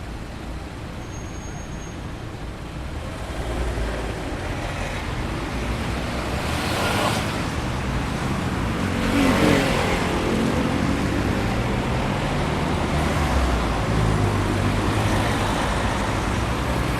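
Traffic on a high-speed city road: a steady rush of cars going by, building up from about three seconds in. Vehicles pass close at about seven seconds and again at about nine and a half seconds.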